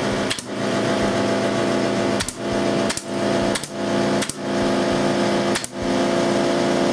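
Pneumatic nail gun firing nails into crown molding: about six sharp shots, spaced unevenly, over a steady hum.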